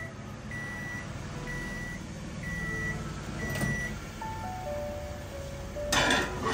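Godrej microwave oven beeping at the end of its heating cycle, one steady high beep about once a second, four times. About three and a half seconds in the door is opened, and about six seconds in there is a loud clatter as the plate is taken off the turntable.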